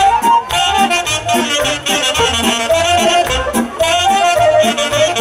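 Live Romanian folk band playing the instrumental introduction of a song: saxophones carry the melody over keyboard and accordion accompaniment and a steady bass and drum beat.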